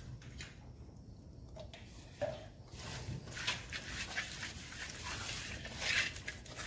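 A hand squishes and turns pieces of fish in a thick spice marinade against a metal bowl, giving soft wet squelching and scraping, busiest in the second half. Two short whines come about one and a half and two seconds in.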